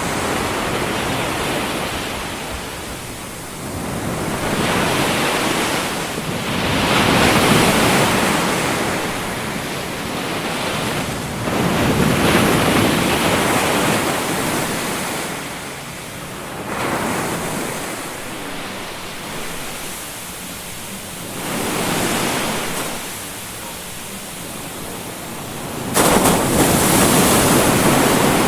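Ocean surf used as a masking noise bed: a rushing wash of waves that swells and falls back every few seconds, with a sudden jump to a louder swell about 26 seconds in.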